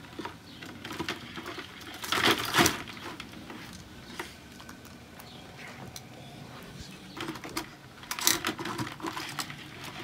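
Metal kitchen tongs clicking and scraping as live blue crabs are grabbed out of a plastic bucket, their shells rattling against each other, with louder bursts of clatter about two seconds in and again near the end.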